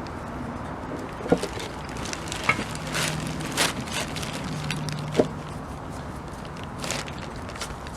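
Work and handling noises while paint stripper is brushed onto a metal frame: three sharp knocks and a few short swishes over a low steady hum.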